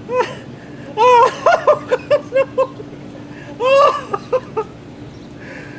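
A man laughing in high-pitched, quick bursts, a short cry, then a rapid run of ha-ha pulses, then another cry. The laughter comes as a bucket of cold blue slime is poured over his head.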